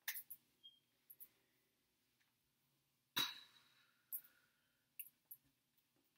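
Hands knocking, brushing and tapping against each other and against clothing while signing: a scatter of short soft clicks and taps, the loudest a sharper knock about three seconds in with a brief high ring after it.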